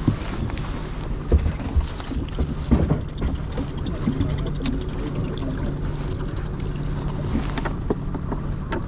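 Wind on the microphone over a steady low hum, with a few short knocks and rattles as hands dig through a plastic minnow cooler for bait.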